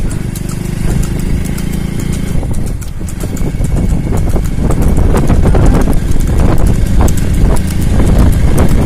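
A motorcycle engine running steadily, with wind rumbling on the microphone and growing louder from about halfway in. A light clatter runs through it, from the buffalo cart's wheels and the buffalo's hooves on the tarmac.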